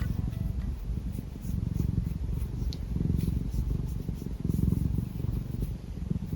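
Minuet cat purring close to the microphone: a low, continuous rumble that swells and eases in slow breaths.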